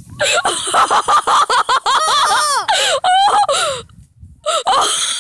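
Young people yelling and shrieking as they ride a torpedo sled down a steep, bumpy snow slope. The high, wailing cries rise and fall, loudest in the middle, over scuffing and rustling noise.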